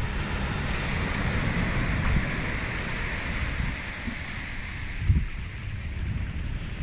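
A small stream of runoff water rushing over beach pebbles, with surf washing in behind, and wind rumbling on the microphone. A short low thump about five seconds in.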